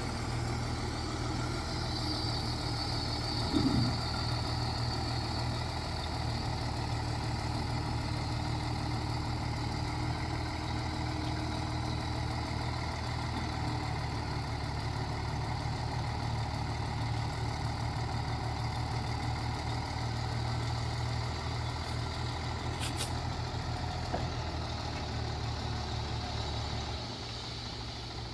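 Heavy diesel engine of earthmoving machinery running steadily, with one short louder knock about three and a half seconds in. The engine's deep hum drops off a little before the end.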